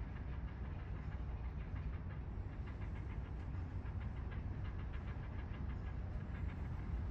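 Steady low rumble with a dense, fine crackling patter of water on the pool surface, around a swimming polar bear cub.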